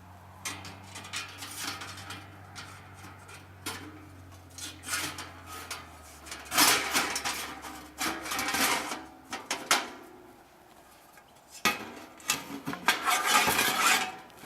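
Metal panels of a flat-pack fire pit clanking, scraping and knocking together as they are slotted into each other during assembly. The clanks come irregularly, with louder clusters about halfway through and again near the end.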